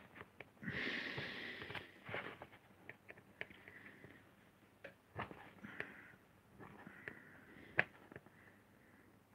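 Lino-cutting gouge carving a linoleum block: short, scratchy scraping strokes with small clicks between them, and a louder rush of noise lasting about a second near the start.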